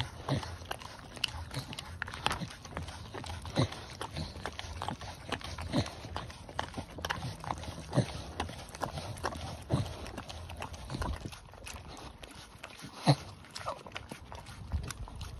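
Staffordshire bull terrier licking and lapping raw food from a rubber Lickimat, tongue and lips making irregular wet smacks and clicks, with one sharper smack near the end.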